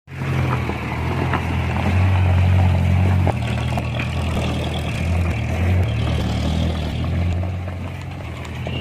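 Heavy diesel engine running steadily, a low hum that swells a little about two seconds in and eases off after three, with a few light knocks.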